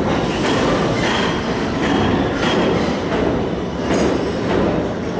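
New York City subway L train cars rolling through the station, wheels clacking over the rail joints about twice a second with faint wheel squeal.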